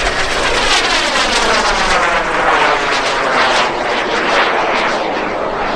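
Subsonex JSX-2 mini-jet's small turbojet engine running during an aerobatic pass: a loud, steady rushing jet roar with a swirling sweep that falls in pitch as the aircraft moves across the sky.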